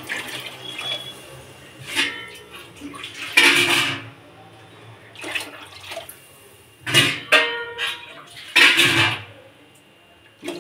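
Kitchen sink work: water splashing and pouring in several separate bursts, with metal pots and utensils clanking. A short metallic ring comes about seven seconds in.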